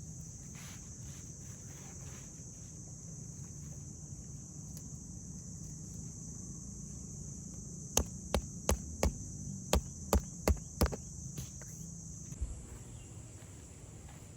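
Steady high-pitched insect chirring, easing slightly near the end, over a low background hum. About eight seconds in comes a quick run of roughly nine sharp knocks or taps over about three seconds.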